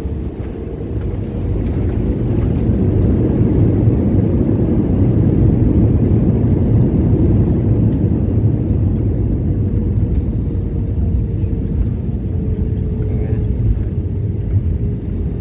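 Cabin noise of an Airbus A320 on its landing rollout with spoilers raised: a loud, low rumbling roar that builds over the first few seconds and then slowly eases as the jet slows, with a faint steady hum underneath.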